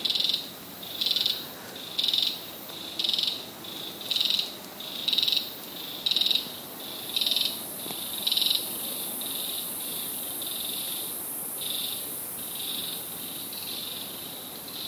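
An insect calling in a regular rhythm, one short buzzy chirp about every second, growing fainter and less distinct in the second half. A steady high hiss joins about seven seconds in.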